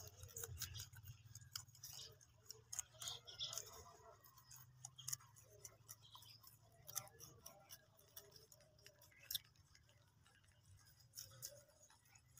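A group of rabbits biting and chewing fresh-cut grass: faint, irregular crisp snips and clicks, thicker in the first few seconds, over a low steady hum.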